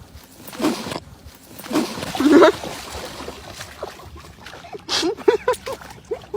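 A dog vocalizing: separate calls about a second apart, then near the end a quick run of short yips that rise and fall in pitch, several a second.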